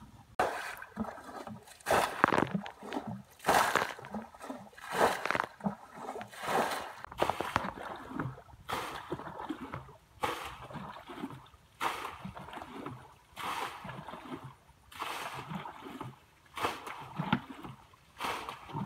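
Water splashing and sloshing in repeated bursts, about one every second or so, as muddy pond water is stirred and thrown about by hand.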